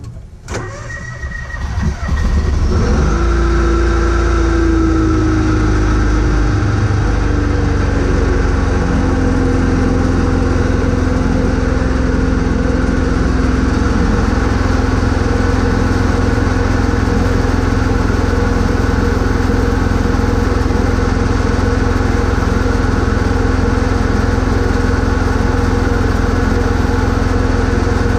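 John Deere X585 lawn tractor's engine cranking briefly and catching about two seconds in. Its speed then settles down over several seconds into a steady idle.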